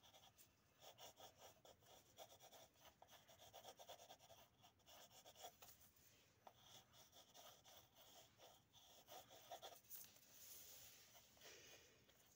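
Faint scratching of pencils drawing on paper, a steady run of short, irregular strokes.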